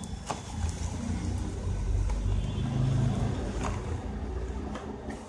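A low rumble that swells about two to three seconds in and then fades, with a few light clicks of cardboard firecracker boxes being handled.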